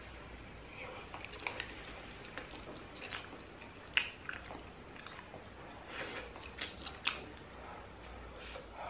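Close-miked chewing of soupy momo dumplings: wet smacking mouth sounds and scattered sharp clicks, the sharpest about four seconds in.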